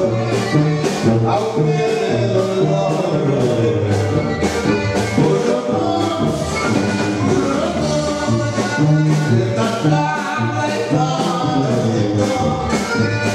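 Live band playing Latin dance music over a PA system, with singing, a steady beat and a bass line.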